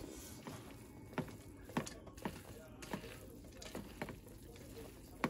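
Faint, irregular light taps and clicks of hands and utensils at kitchen work, roughly one a second over a quiet room background.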